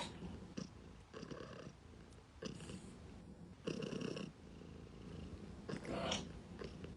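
Domestic cat purring close up, in pulses of about half a second that come with each breath.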